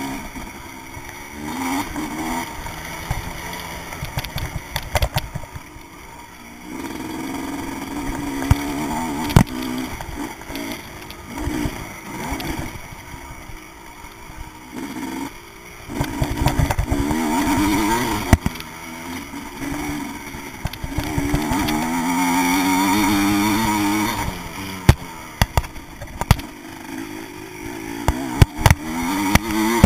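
Vintage motocross bike's engine heard from a handlebar-mounted camera, revving up and falling back again and again as the throttle opens and closes. Several sharp knocks cut in along the way.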